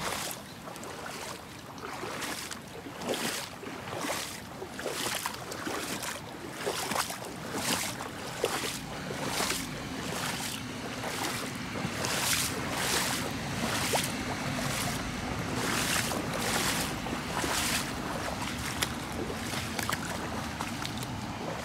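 Footsteps splashing through shallow floodwater at a walking pace, about one and a half steps a second, over a steady hiss of falling rain; the steps stop a few seconds before the end.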